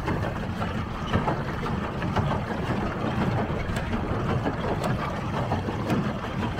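Water rushing and splashing against a pedal boat moving across the lake under pedal power, a steady noise with a low rumble.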